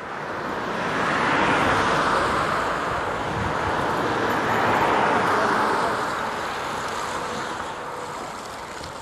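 Road traffic going by close at hand: the tyre and engine noise of passing cars swells twice, about two seconds in and again about five seconds in, then slowly fades.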